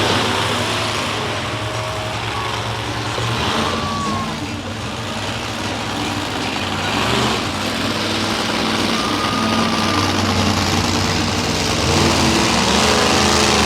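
Monster truck engines running steadily at a low rumble, with no hard revving.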